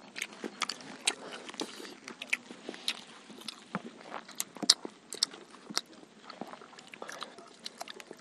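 Close-miked eating of chicken biryani and fried chicken lollipops by hand: chewing and biting, with many short, irregular mouth clicks and crunches.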